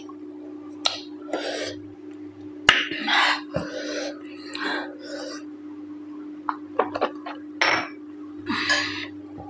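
Close-miked eating sounds: short wet mouth noises of chewing and lip smacking, with sharp clicks and clinks in between, over a steady low hum.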